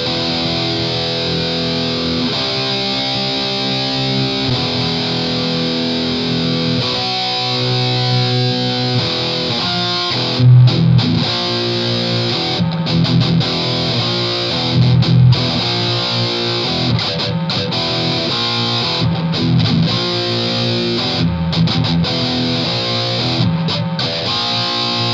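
Heavily distorted electric guitar through AmpliTube 3's Mesa Boogie Dual Rectifier amp simulation, high gain boosted by overdrive pedals, playing metal riffs. About the first ten seconds are held, ringing chords changing every couple of seconds; then it turns to a tight, choppy chugging riff with brief stops and harder accents.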